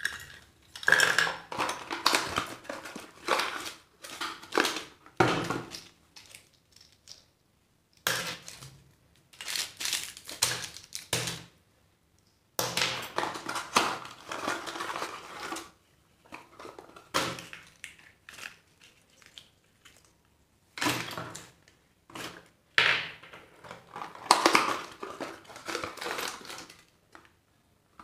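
Small cardboard mystery boxes being opened by hand, with plastic candy wrappers crinkling and small plastic toys clattering as they are handled and set down on a table. It comes in bursts of a few seconds with short pauses between them.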